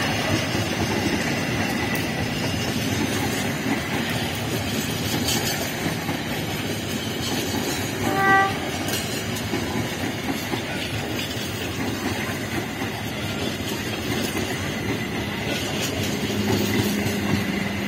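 Passenger coaches of a diesel-hauled train rolling past, a steady rumble of wheels running on the rails. About eight seconds in there is a single short horn toot.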